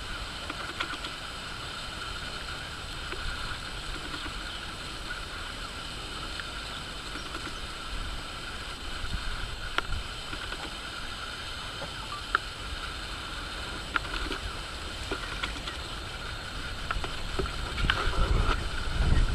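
Steady outdoor ambience: a low rumble under a steady high-pitched drone, with a few faint clicks. The low rumble swells near the end.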